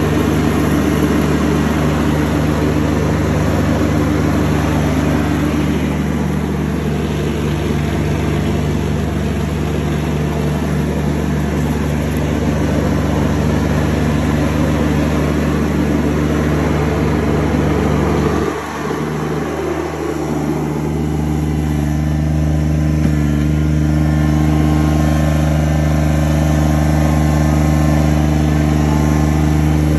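Kubota BX1850 garden tractor's three-cylinder diesel engine running steadily under throttle as the tractor drives; about two-thirds of the way through, the note dips briefly and then settles into a slightly different steady pitch.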